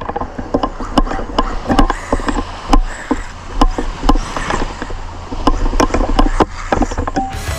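Mini-T RC truck driving hard through loose beach sand, with many irregular sharp clicks and knocks. Gusting wind rumbles on the microphone underneath.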